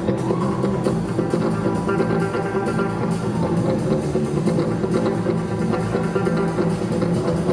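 A live rock band playing an instrumental jam: electric bass guitar, drum kit and electric guitar, with a steady drum beat under sustained chords.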